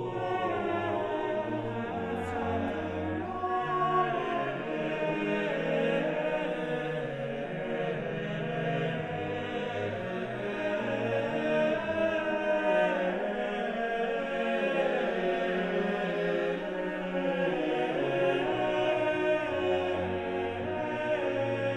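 Choral chant: several voices singing slowly in long held notes over a low bass line that moves in steps.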